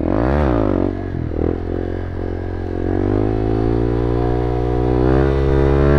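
Motorcycle engine revved up and quickly back down about half a second in, then running steadily with its pitch slowly climbing.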